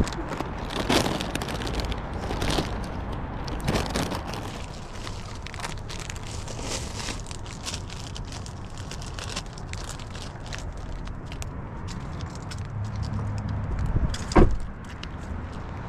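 Plastic bags crinkling and rustling as snack packets are sorted on a car seat. About a second before the end, a car door shuts with one loud thud.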